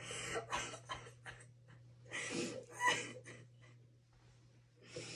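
A woman crying: runs of short, breathy sobs and sniffs, one cluster in the first second and a half, another a little after two seconds, and a fresh one starting near the end.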